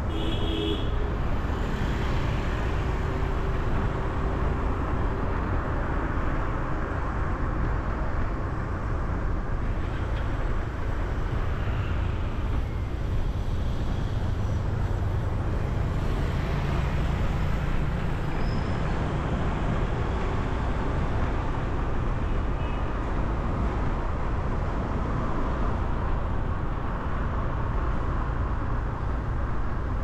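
Steady city traffic and road noise heard from a vehicle moving along the street, with a heavy low rumble throughout. A short horn toot sounds about a second in.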